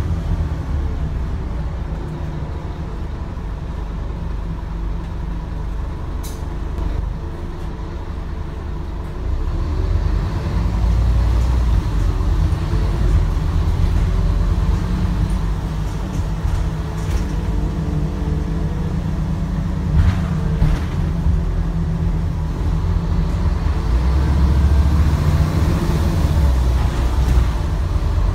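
Scania N230UD double-decker bus's diesel engine running steadily on the move, louder from about ten seconds in, with a couple of short clicks.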